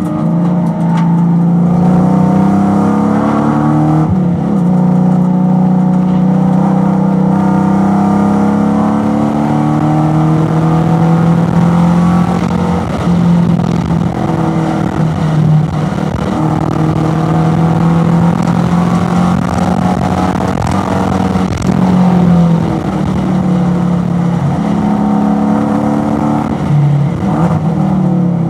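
Race car's V8 engine heard from inside the cabin, working hard on track. Its pitch climbs under acceleration, drops at an upshift about four seconds in, and rises and falls again with braking and downshifts near the end.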